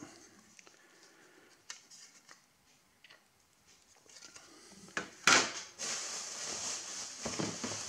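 Printed circuit boards being handled and set down on a wooden table: a few light clicks, then a sharp clatter about five seconds in. A steady hiss follows.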